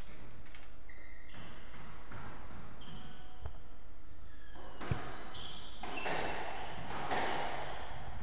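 Court shoes squeaking on a squash court's wooden floor, and one sharp knock of the squash ball about five seconds in. A noisy hiss swells and grows louder over the last two seconds.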